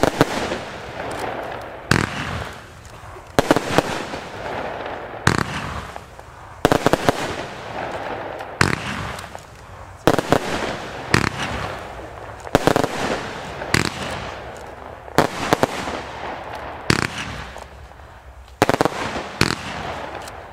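Coloured Leopard 72-shot fan firework battery firing. Sharp shots come about every one to two seconds, each trailing off in a fading rush of noise as the stars burst.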